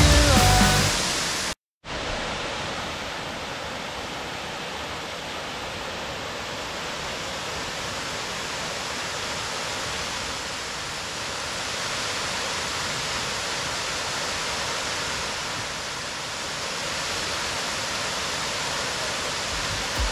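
Steady rushing roar of a waterfall. It follows a rock music track that fades out and cuts off in the first couple of seconds.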